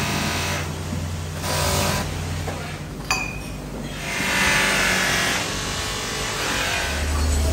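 Polishing motor running with a steady low hum as it spins a cloth buffing wheel. About three seconds in the hum drops away and a single sharp metal clink rings out, followed by a louder stretch of clattering noise.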